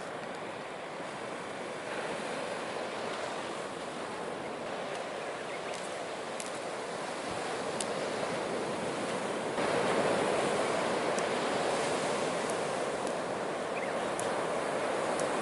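Steady wash of surf breaking on the shore, stepping up louder about two-thirds of the way through, with a few faint crackling pops from a driftwood fire.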